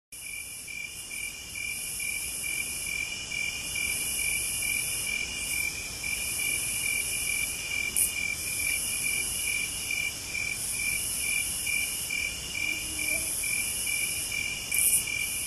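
Crickets chirping in a steady, even rhythm, about two to three chirps a second, over a high hiss, with a brief louder tick about eight seconds in and another near the end.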